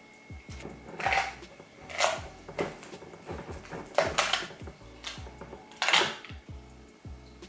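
Breakfast things being handled on a kitchen table: about six sharp clinks and knocks, among them a glass Nutella jar being handled and its plastic lid unscrewed, over background music.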